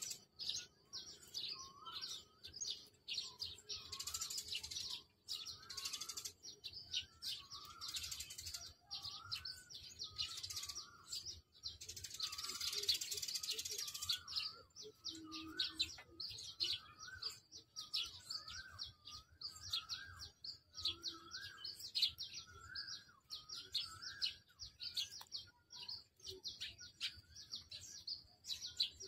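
Several birds calling in a dawn chorus: many quick high chirps over a lower warbling phrase repeated about once a second, with a hissing rush twice in the first half.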